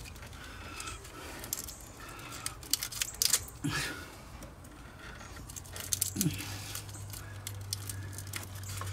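Hands working at a wiring harness and its corrugated plastic loom in an engine bay, giving scattered small clicks, taps and rustles. A low steady hum comes in about six seconds in.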